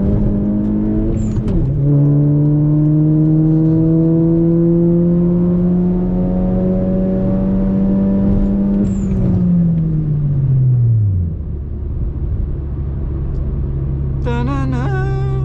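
Turbocharged VW Golf engine accelerating, heard from inside the car. The revs climb, then drop at a quick gear change about a second and a half in. In the next gear the pitch rises slowly for about seven seconds. Then the throttle is lifted and the revs fall away to a steady low hum, with a short sharp click at the shift and again at the lift-off.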